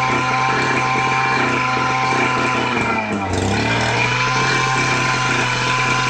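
Small single-cylinder engine of a portable engine-driven pump running steadily. About three seconds in its speed sags briefly and picks back up. It is running after a new carburettor diaphragm and a mixture adjustment.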